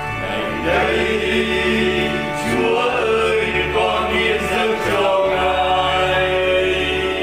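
Vietnamese Catholic hymn sung by voices over steady instrumental backing; the singing comes in about half a second in with the start of the refrain.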